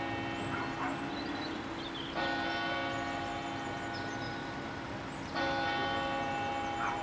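Church bell tolling slowly, a single bell struck about every three seconds, each stroke ringing on and fading away: once about two seconds in, and again about five seconds in.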